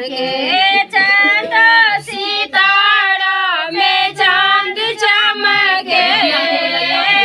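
Women singing a Maithili chumavan wedding song in high voices, unaccompanied, with long held and bending notes.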